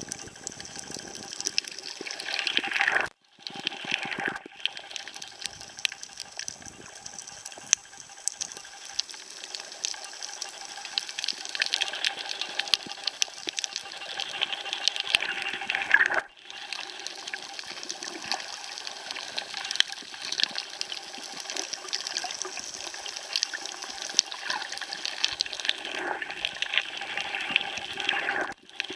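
Underwater ambience recorded by a camera below the surface: a dense, steady crackle of fine clicks over a watery hiss. The sound drops out briefly about three seconds in, midway, and near the end.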